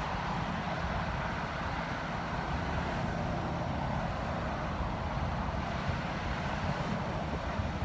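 Steady interstate highway traffic noise with a continuous low engine rumble.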